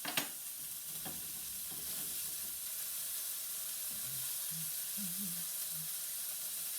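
Flour-dredged chicken cutlets sizzling steadily as they fry in olive oil in a pan, with one short click just after the start.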